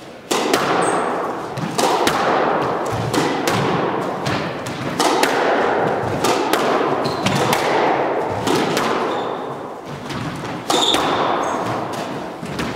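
Squash rally: the ball cracking off racquets and the court walls in a quick run of sharp hits, several a second at times, each one ringing on in the echo of the enclosed court.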